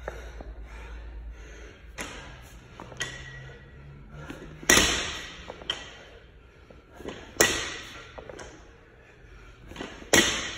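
Barbell loaded with 10 kg Bison bumper plates dropped from overhead onto the rubber gym floor three times, about two and a half seconds apart, on ground-to-overhead reps; each landing is a loud bang with a ringing rattle of the plates after it. Fainter clinks of the bar and plates come between the drops.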